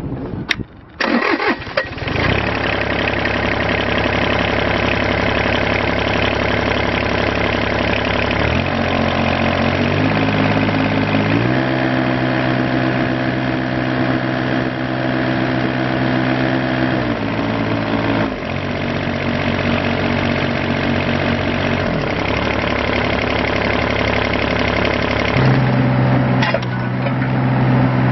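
The diesel engine of a 2012 John Deere 17D mini excavator stops for about a second and is restarted on the key, then runs steadily. Its speed steps down and back up a few times and changes once more near the end.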